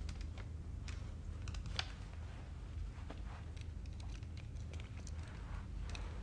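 Quiet room tone with a steady low hum and scattered small clicks and soft rustles of clothing and eyeglasses being handled.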